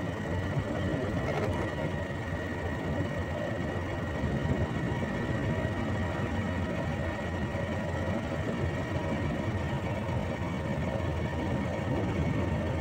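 Motor scooter engine running at a steady cruising speed with road noise while riding, holding an even level with no change in pace.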